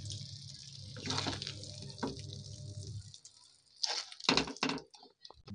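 A spatula scoops thick, wet mashed eggplant bharta out of a kadai into a ceramic bowl, giving soft squishing and short scraping sounds, with a cluster of them near the end. A low steady hum runs under the first three seconds.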